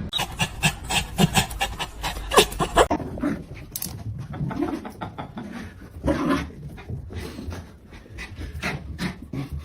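A dog panting in quick, short breaths, louder over the first few seconds.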